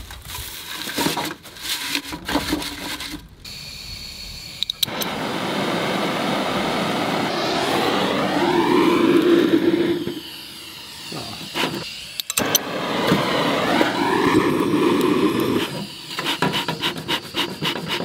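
A handheld gas torch hisses as it lights dry pine needles packed in a bee smoker, in two long bursts of about five and three seconds. Pine needles rustle and the metal smoker clicks at the start and near the end.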